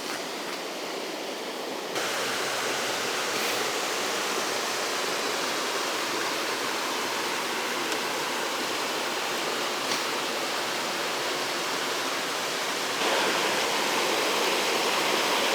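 Waterfall running with a heavy flow: a steady rushing of water that gets louder about two seconds in and again near the end.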